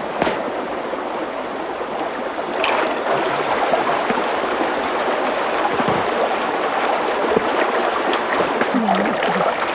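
Shallow stream running over stones, a steady rush of water, with a few short splashes as cloth is rinsed in it. Faint voices near the end.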